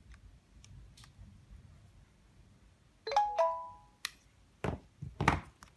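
A phone's short two-note electronic chime about three seconds in, after a few faint clicks from handling. It is followed by three sharp knocks and clicks as the phones are moved and set against each other, the last knock about as loud as the chime.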